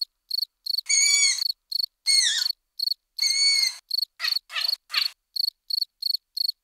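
Crickets chirping in a steady rhythm, about three chirps a second. Over them come three longer high, squeaky calls in the first four seconds, then a few shorter ones: the begging calls of a young long-eared owl asking for food.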